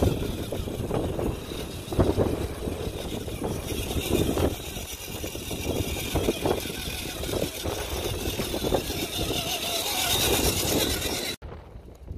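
Redcat Gen7 RC crawler's electric motor whining steadily as the truck drives through shallow creek water, with irregular splashing and sloshing from the tyres. The sound cuts off suddenly near the end.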